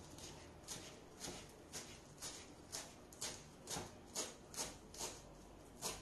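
Kitchen knife chopping fresh parsley on a wooden cutting board: a steady series of sharp taps, about two a second, getting a little quicker toward the end.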